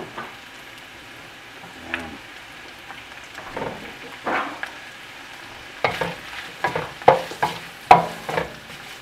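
Shredded roast chicken with onion and garlic sizzling in a stainless steel pan. A wooden spatula scrapes and stirs against the pan: a few strokes midway, then a quicker run of sharp strokes in the last few seconds.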